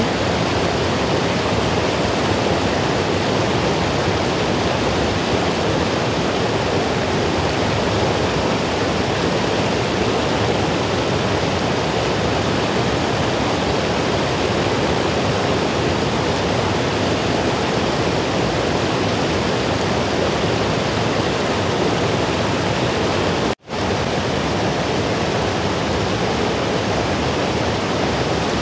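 Shallow river water rushing steadily over rock slabs and small rapids. The sound drops out for an instant about three quarters of the way through, then carries on as before.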